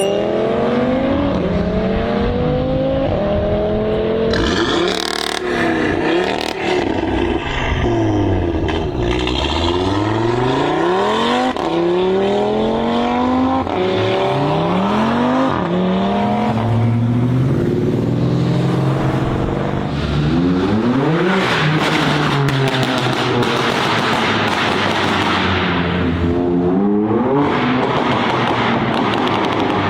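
High-performance car engines revving and accelerating hard. The pitch climbs again and again and drops back sharply at each gear change, with some cars sweeping past.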